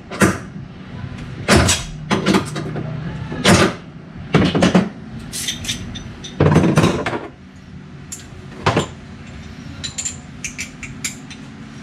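Wrench and bolts clanking and knocking on the metal seat and belt mount of a side-by-side during disassembly: a string of sharp, uneven clanks through the first nine seconds, then only faint small clicks.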